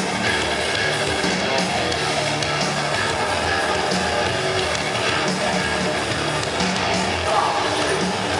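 Live rock band playing with electric guitars and drums, heard from within the crowd: dense, steady music with no break.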